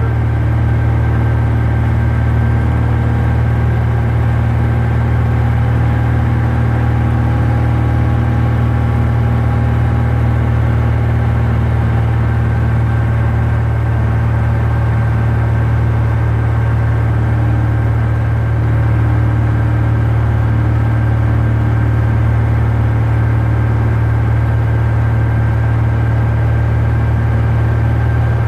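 A Cessna 172's piston engine and propeller running steadily in level flight, heard from inside the cabin as a constant low drone.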